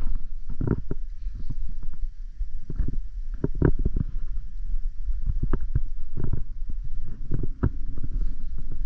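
Wind rumbling steadily on the microphone, with irregular thumps and knocks every fraction of a second to a second.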